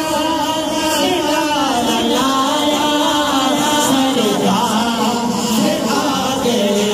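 Men's voices singing a naat, a devotional Urdu/Punjabi hymn, in long held, sliding notes, with the gathering chanting along.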